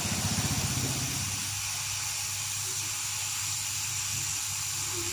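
Hot-air rework station blowing a steady hiss of hot air onto a surface-mount chip to melt its solder for removal, with a low hum beneath.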